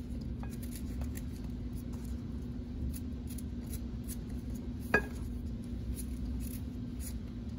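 Small kitchen knife cutting an apple held in the hand, with faint quiet cutting clicks and one sharp clink against a glass mixing bowl about five seconds in. A steady low hum runs underneath.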